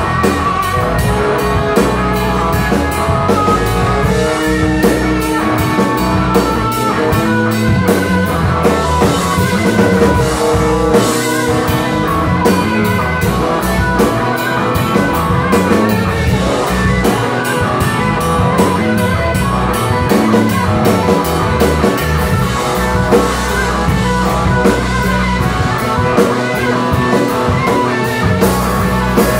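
Live rock band playing loud, with electric guitars over a steady drum-kit beat.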